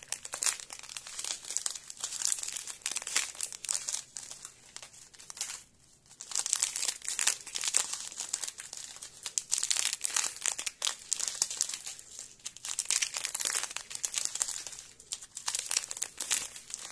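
Small plastic packs of diamond-painting drills crinkling as they are handled and sorted one after another, with a short lull about six seconds in.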